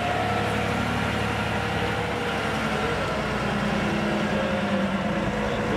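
A large marina forklift's engine running steadily as it drives with a boat on its forks, with a whine whose pitch shifts now and then.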